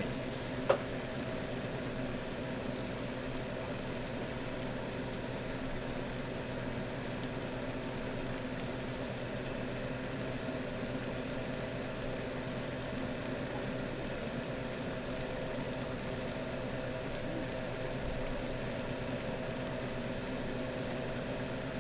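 Steady electric hum of the trout tank's running equipment (pump, chiller and aeration), an unchanging drone with a few constant tones. A single sharp click comes under a second in.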